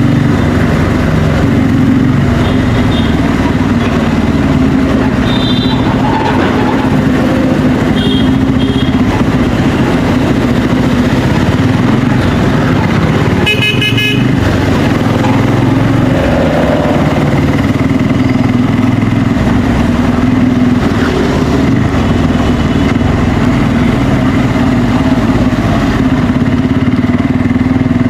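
Bajaj Pulsar N250's single-cylinder engine on its stock exhaust, running steadily under way in traffic. Vehicle horns honk several short times, the loudest a brief honk about halfway through.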